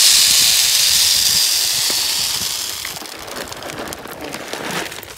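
A loud steady hiss that fades away over about three seconds, followed by light crackling and rustling.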